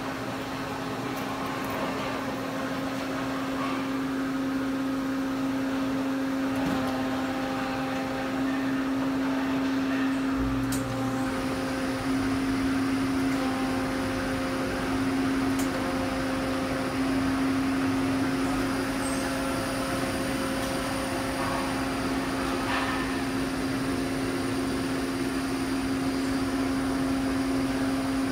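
Daewoo Puma 8 CNC lathe switched on and idling, with no cutting: a steady mechanical hum carrying a clear low tone. About ten seconds in, a short low rumble comes in, and a faint high-pitched whine starts and keeps going.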